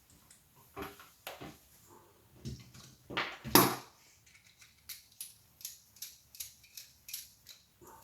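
Light metallic clicks and clinks of small hard drive spindle motor parts being handled and unscrewed, with a louder clack about three and a half seconds in.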